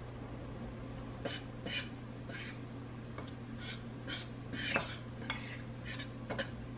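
A metal utensil stirring flour and other dry ingredients in a bowl. From about a second in it scrapes and taps against the bowl in short, irregular strokes, about two a second.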